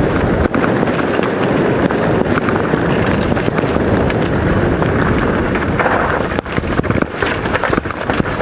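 Mountain bike descending a rocky, loose singletrack: tyres on stones and gravel, the bike rattling with many sharp knocks over the bumps, under wind noise on the microphone.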